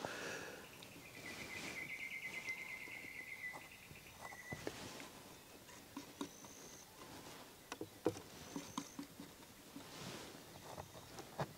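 Soft scrapes and light taps of a palette knife working oil paint on a canvas. A rapid trilled animal call runs for a couple of seconds about a second in, with a few brief high chirps later.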